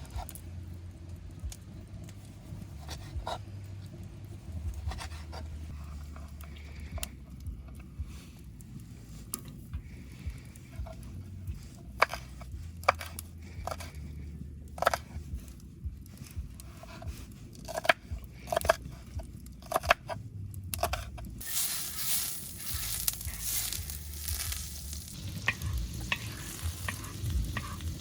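Scattered sharp clicks and knocks, then about twenty seconds in a loud sizzle starts suddenly as food goes into a hot pan, and it keeps frying.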